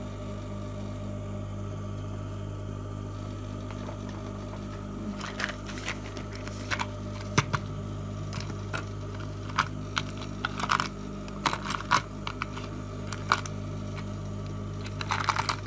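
Sewing machine presser feet being handled: scattered light clicks and taps, more frequent near the end, over a steady low hum.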